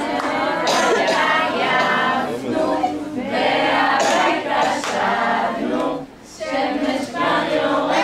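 A group of young children singing a song together, with a woman's voice among them, and a brief break between phrases about six seconds in.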